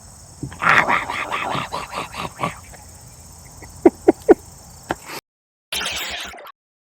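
Insects trilling steadily. Over this comes a quick run of rasping strokes, then three short, loud calls from an animal about four seconds in.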